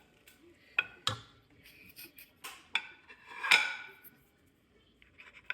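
Dishes and utensils clinking while food is served: several sharp clinks with a short ring, the loudest about three and a half seconds in.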